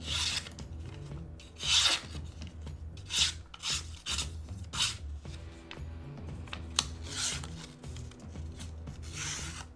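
WE Knife Co. Banter pocket knife blade slicing through a sticky note: several short, papery rasping strokes at uneven intervals, the loudest about two seconds in.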